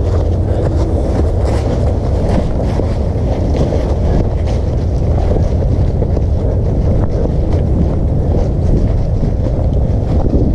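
Wind buffeting the camera's microphone, a steady loud low rumble, with faint crunching of footsteps in dry fallen leaves under it.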